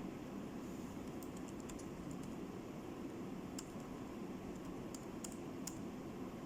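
Computer keys clicking: a quick run of light clicks just over a second in, then single clicks spaced out later, over a steady low hum.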